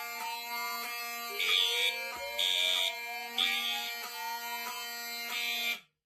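Fire alarm horns sounding together: a Cerberus Pyrotronics MTL-S17F horn on code 3, blasting three half-second blasts and then pausing, over a Wheelock 7002 horn sounding continuously, with a slow rising sweep tone repeating every couple of seconds. All of it cuts off abruptly near the end.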